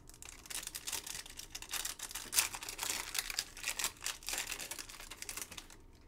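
Foil Panini Select football card packs being handled and opened: a quick, irregular run of small crinkles and clicks as the wrappers crackle and the cards are worked through the fingers, stopping just before the end.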